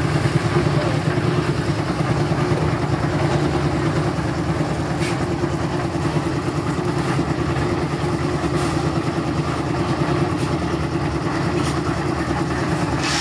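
Concrete mixer's engine running steadily at a constant speed, with a few faint clicks over it.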